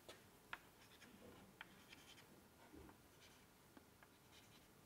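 Faint, sharp taps of chalk on a chalkboard as points are dotted one by one, several taps spaced irregularly over a quiet room hiss.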